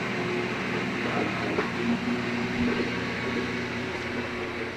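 GE top-load washing machine (GTWN2800D1WW) spinning its empty drum at low speed: a steady motor and drum hum with a faint whine. It runs quietly with no grinding, the sign that the tub bearing repair has taken.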